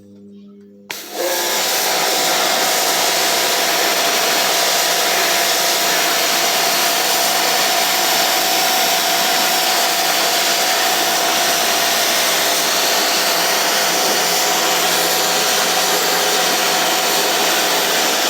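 Pressure washer spraying water, a loud steady hiss that starts suddenly about a second in when the trigger is pulled.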